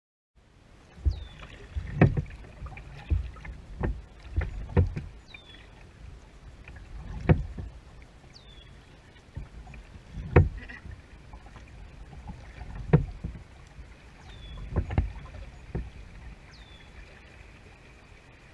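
Kayak paddling picked up by a camera on the kayak's bow: the paddle strokes come through as low thumps and knocks every two to three seconds over a steady wash of water.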